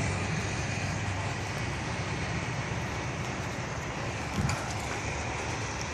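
Steady background rumble of distant engines and traffic, with a faint low hum that fades in the first second or so.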